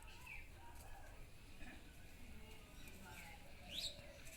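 Birds chirping faintly in the background: scattered short calls, with one sharper rising call near the end, over a low steady outdoor rumble.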